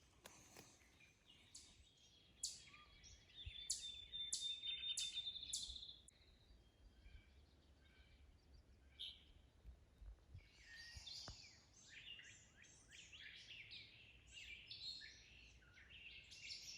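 Wild birds calling, faint: a run of sharp high notes with a thin trill in the first few seconds, then a busy stretch of quick chattering calls from about ten seconds in.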